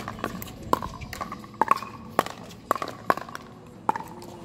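A fast pickleball rally: paddles striking a hard plastic pickleball, about eight sharp, ringing pocks in quick succession.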